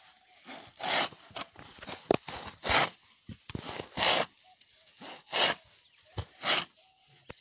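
Rhythmic rasping strokes, short and regular, about one every second and a quarter.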